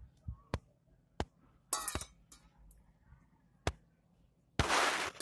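A few sharp, separate clinks from a stainless steel water bowl as a German Shepherd puppy noses and drinks at it. Near the end comes a loud, rough burst of noise lasting about half a second.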